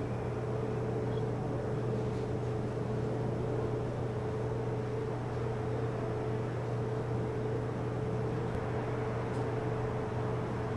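A steady low mechanical hum with a faint held tone above it, unchanging throughout.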